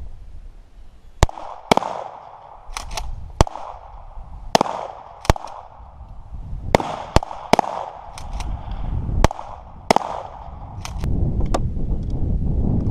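Gunshots fired one at a time at an irregular pace, about fifteen in all and sometimes two in quick succession, each followed by a short echo. A low rumble, like wind on the microphone, sits under the start and swells toward the end.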